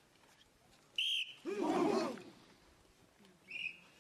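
A short drill whistle blast about a second in, then a brief loud shout from many voices at once as a formation of soldiers answers the command. A second whistle blast comes near the end.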